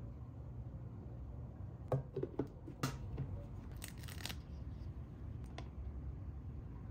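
Small handling sounds over a low room hum: a few clicks and taps, then a plastic sticker sheet crinkling briefly as stickers are peeled off it with tweezers, about four seconds in.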